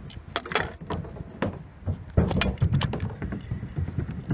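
Irregular sharp clicks and knocks, about a dozen, over a low rumbling noise.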